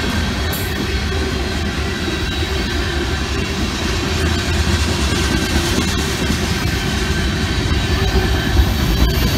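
Freight train cars of a CSX mixed freight rolling past at a grade crossing: a steady, loud rumble of steel wheels on rail, growing a little louder about halfway through.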